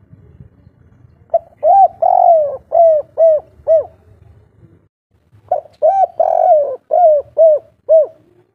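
Spotted dove (tekukur) cooing twice in its 'kuk 3' pattern: each phrase opens with two short notes, swells into a longer coo, and ends with three short, evenly spaced 'kuk' notes. The song is a male's call to females.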